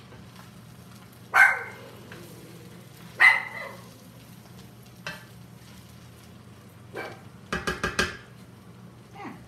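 A dog barks twice, about a second and a half and about three seconds in, over fried rice being stirred as it sizzles in a pan and a steady low hum. Near the end comes a quick run of four sharp sounds.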